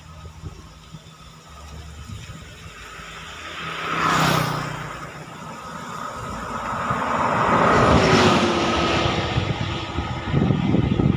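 Road traffic passing close by. One vehicle rushes past about four seconds in, then a bus approaches and passes about eight seconds in, its engine note falling as it goes by.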